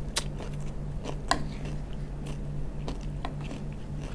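Close-miked chewing and crunching of asinan sayur, a pickled raw-vegetable salad, with scattered sharp crunches and wet mouth clicks, the loudest crunch about a second in, over a steady low hum.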